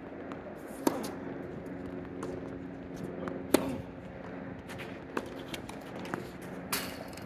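Tennis rally on a hard court: rackets striking the ball several times, the loudest hits about a second and three and a half seconds in, with lighter shoe scuffs and footsteps between them and a faint steady hum underneath.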